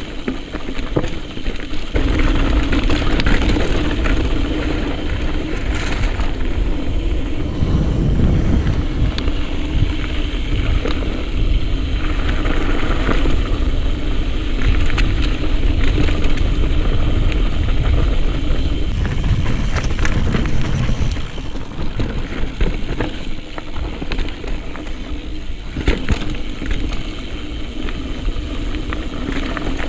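Mountain bike riding over a rocky trail: a steady rushing noise with the crunch and rattle of the bike over rocks, and occasional sharp knocks.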